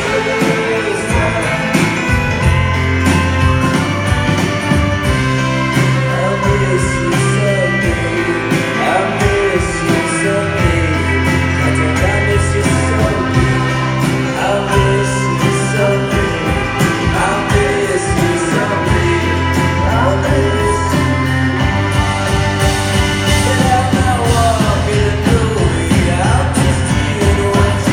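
Live band playing a song with singing: a steady drum beat, held bass notes that change every few seconds, and voices over them.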